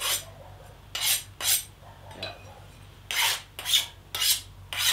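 Hand file scraped in quick strokes across the edge of a freshly quenched damascus steel blade, about seven rasping strokes with a short pause in the middle. It is a file test for hardness: the file skates over the edge without biting, the sign that the steel is fully hardened.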